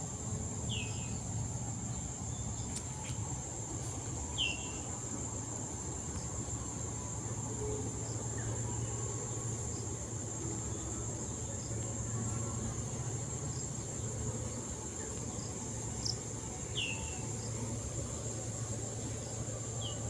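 Steady high-pitched drone of insects in the riverside vegetation, unbroken throughout, over a low steady hum, with a few short falling chirps.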